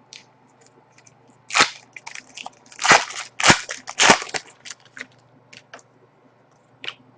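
Trading cards and a pack wrapper being handled: four short, loud crinkling rustles in the middle, with faint clicks and rustles around them.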